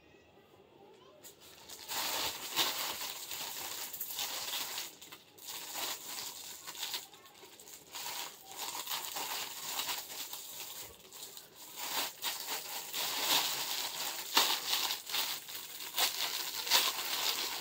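Clear plastic garment bags crinkling and rustling as they are handled and opened, a dense run of small crackles that starts about two seconds in and carries on without a break.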